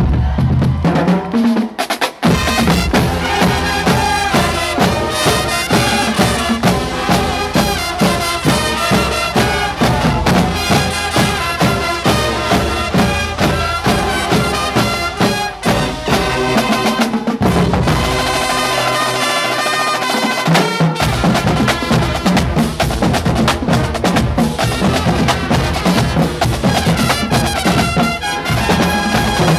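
Marching band of brass and drumline, with snare drums, trumpets and sousaphones, playing loudly together. A brief break comes about two seconds in, and the bass drops out for a few seconds a little past the middle while the upper parts carry on.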